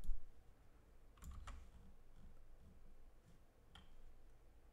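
A few faint computer keyboard keystrokes, spaced out as single clicks rather than a steady run of typing.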